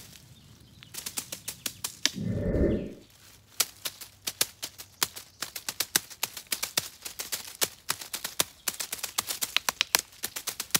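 Two wooden sticks drumming quick, dry clicking beats on the forest floor, a fast uneven roll of taps that starts about a second in. A dull low rumble rises briefly about two seconds in.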